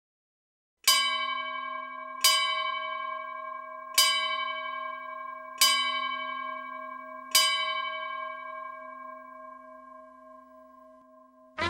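A bell struck five times, each strike ringing the same tone; the last rings out for about four seconds and slowly fades.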